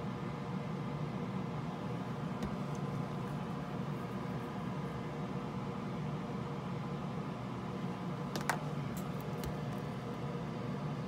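Steady mechanical hum with faint steady tones, like a fan or ventilation running. A few light clicks stand out, the loudest about eight and a half seconds in.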